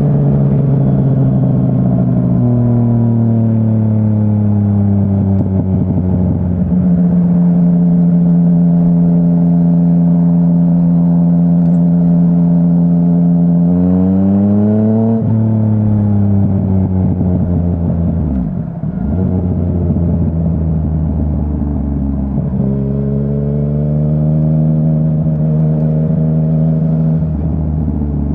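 2017 Yamaha Tracer 900's three-cylinder engine running through a Dominator HP3 full exhaust system under way. It holds steady revs for a long stretch, then climbs in pitch about 14 seconds in, drops sharply and winds down. It climbs again near the end.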